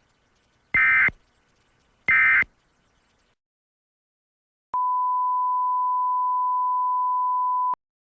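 Emergency Alert System end-of-message data bursts: two short, harsh digital chirps about a second and a half apart, closing the alert. After a pause comes a steady single tone near 1 kHz for about three seconds, which cuts off sharply.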